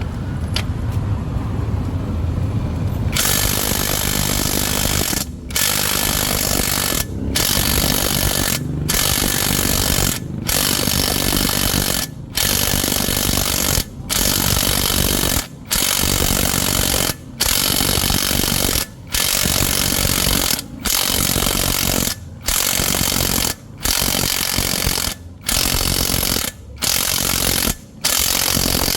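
Impact wrench hammering in about fifteen bursts of roughly a second and a half each, with brief pauses between them. It starts about three seconds in, after a low rumble.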